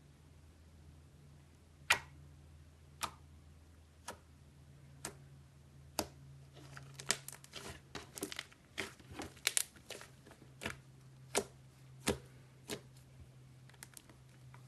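White slime being squeezed and poked by hand, making sharp popping clicks: about one a second at first, a quick run of crackling pops in the middle, then spaced pops again. A faint steady low hum sits underneath.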